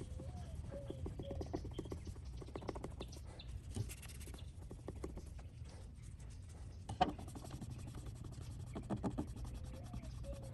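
Rag scrubbing at the rusty metal around a van's fuel door with Ospo rust remover: light, irregular scratching and rubbing strokes, with a few faint short chirps near the start and again near the end.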